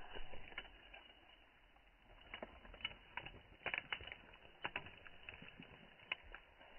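Footsteps on dry stubble and grass, faint and irregular, a few steps a second, with light rustling.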